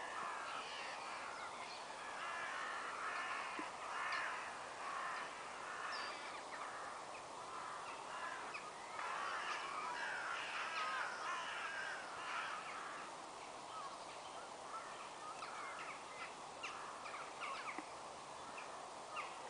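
Many crows cawing, their calls overlapping in a continuous chorus, with one busier stretch in the first few seconds and another around the middle.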